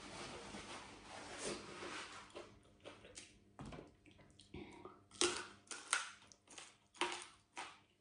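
Chewing crispy deep-fried pork belly, with a run of sharp, separate crunches in the second half.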